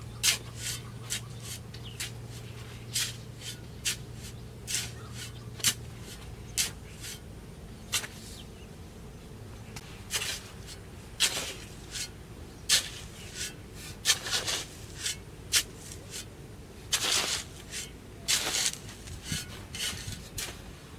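Irregular short scraping and rubbing sounds of wood or bamboo being handled and worked by hand, a few of them longer strokes, over a low steady hum that stops about six seconds in.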